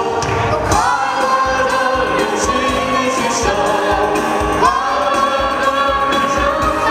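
A group of singers on stage singing a song together into microphones, amplified through a PA, over backing music with a steady beat.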